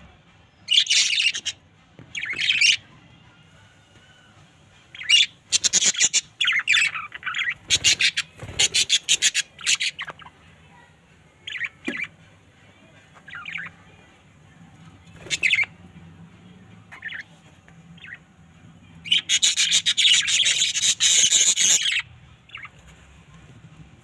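Budgerigars chirping and chattering in short high-pitched bursts, with a quick run of calls in the first half and a longer, busier stretch of chatter near the end.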